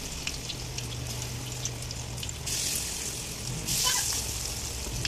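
Carrot and chana dal vadai patties sizzling in deep hot oil, a steady hiss with scattered crackles. The hiss swells about two and a half seconds in and again, loudest, near four seconds.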